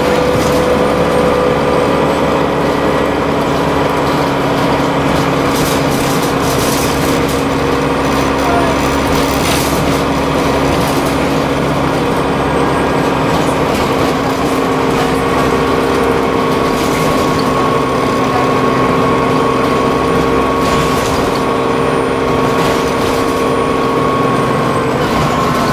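Interior sound of a Dennis Trident double-decker bus running: a steady engine and drivetrain drone with a steady whine, and a few brief rattles.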